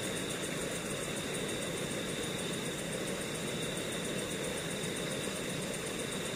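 Steady rush of fast-flowing river water under the bridge, with insects trilling in a constant high tone.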